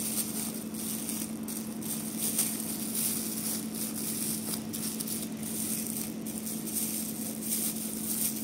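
Thin plastic ice-pop bag being rolled and twisted between the fingers, crinkling softly and irregularly, over a steady low hum.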